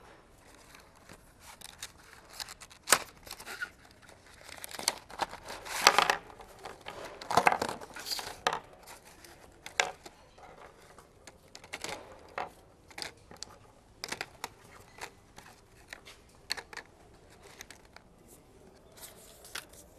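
Coloring paper cut-outs by hand: irregular scratchy strokes of a coloring tool on paper, with paper rustling and small clicks, busiest about six to eight seconds in.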